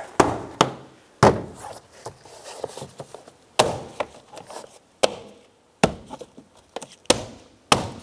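A gloved hand tapping around the edge of a 2012 Subaru Impreza's plastic front door trim panel, seating the panel onto the door. About eight sharp taps at uneven intervals, the loudest about a second in.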